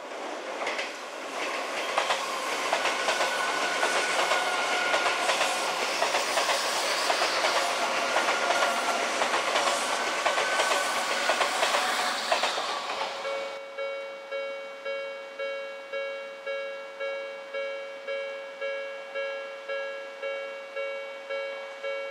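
An Odakyu electric train passes over the level crossing: a loud, steady rush of wheels on rail with clicking rail joints and a faint whine. It cuts off abruptly about 13 seconds in, and a level-crossing warning bell then rings in a steady rhythm, about two dings a second.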